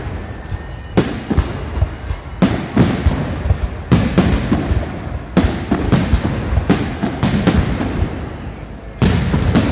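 Fireworks salute going off: a rapid, irregular series of sharp bangs and booms, often two or three in quick succession, with a short lull before a fresh burst near the end.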